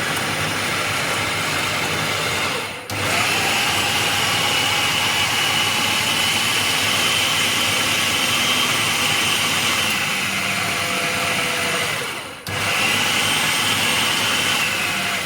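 Electric food chopper motor running at full speed with a high whine, mincing cubed raw chicken breast with chili and onion. It pauses briefly twice, about three seconds in and again about twelve seconds in, then stops at the end.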